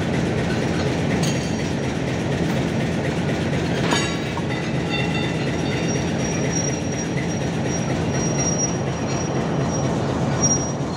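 Intercity passenger coaches rolling past on the rails with a steady rumble of wheels on track and a sharp knock about four seconds in. After that a thin, high, steady squeal from the wheels runs through most of the second half.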